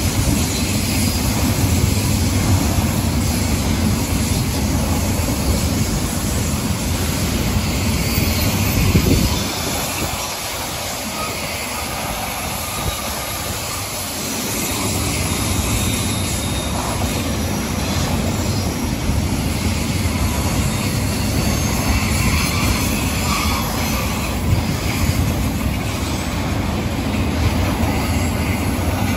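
Double-stack intermodal freight cars rolling past on the rails: a steady rumble and clatter of steel wheels. It dips a little in loudness for a few seconds about ten seconds in.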